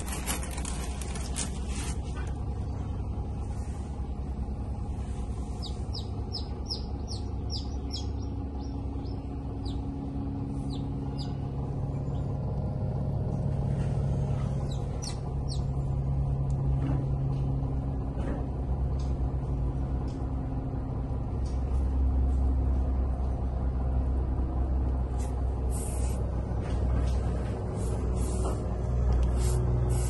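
A steady low hum and rumble that grows louder about two thirds of the way through. Over it, a quick run of about eight short high bird chirps comes around six to nine seconds in, with a few scattered chirps later.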